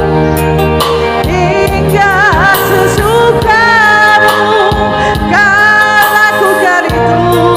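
Live band music with a singer drawing out long, bending notes without clear words, including one long held note near the middle, over steady bass and keyboard accompaniment.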